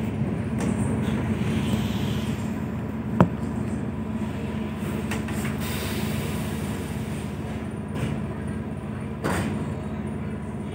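ED4M electric train running, heard from inside the carriage: a steady low rumble and hum that grows gradually quieter, with a sharp click about three seconds in and a thump near the end.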